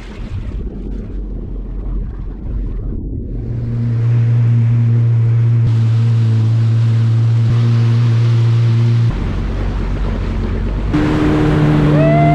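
Jet ski running on the water: wind and water rush at first, then from about three and a half seconds in a steady engine drone, which jumps to a higher pitch near the end.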